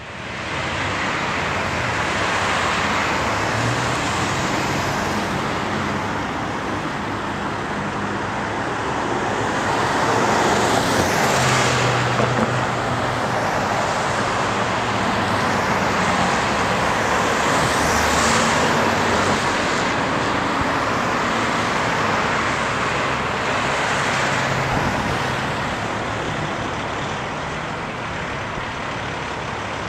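Street traffic with vehicles passing by, two of them loudest about a third and about two thirds of the way through, over the low, steady running of a Peterbilt semi-truck's diesel engine as it pulls slowly away.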